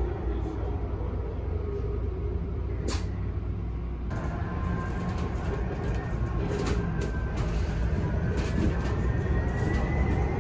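Cabin ride noise of a BusTech ZDi battery-electric bus on the move: a steady low rumble with the thin whine of its electric drive. The whine climbs steadily in pitch over the last couple of seconds. There is one sharp click about three seconds in and a few lighter rattles later.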